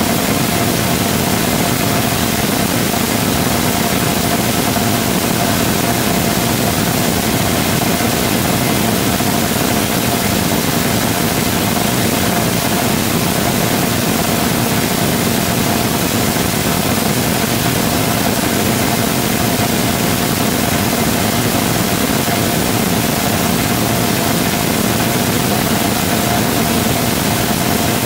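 Full-scale Rotating Detonation Rocket Engine combustor firing steadily in a long burn: a loud, unbroken roar with a constant mid-pitched tone running through it.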